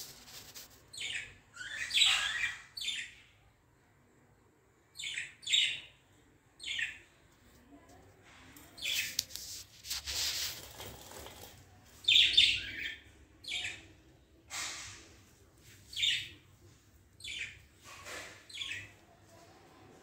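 Budgerigars chirping: short, high calls, some in quick pairs, scattered through with gaps of a second or more between them.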